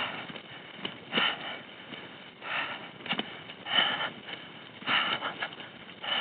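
Heavy, laboured breathing of a cyclist straining to pedal a heavily loaded bike uphill on rough gravel, one loud breath about every second and a quarter, with a few sharp clicks between the breaths.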